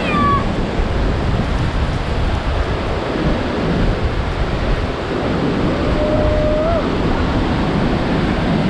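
Orange River in flood pouring over Augrabies Falls: a loud, steady rush of falling water and spray, with spray-driven wind buffeting the microphone. A short thin tone sounds briefly about six seconds in.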